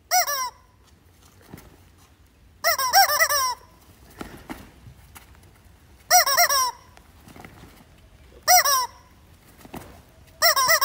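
Yellow rubber squeaky chicken squeezed by hand five times, giving a honking squawk every two to three seconds; the second squawk is longer, about a second. Each squawk is the cue for the players to jump to the next chalked square.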